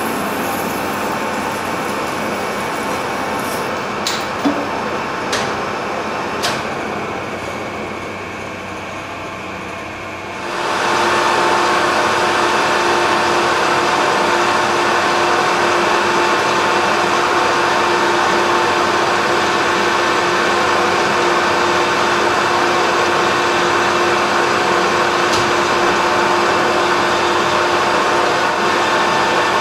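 Metal lathe running while a high-speed-steel parting tool cuts into a spinning steel bar, with a few sharp clicks in the first half. About ten seconds in, the sound gets louder and settles into a steady whine.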